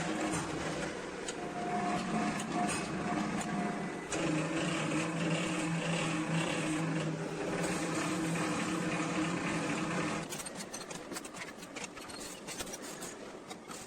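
СПТ-280т milling-and-sawing machine (side chipper heads and circular gang saws) running with a steady electric motor hum. About ten seconds in the hum drops away, leaving a rattling noise with sharp clicks.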